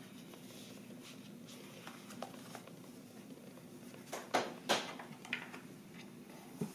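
Room tone with a low steady hum, then a few sharp taps or clicks about four to five seconds in and a louder one at the very end, like objects being handled on a desk.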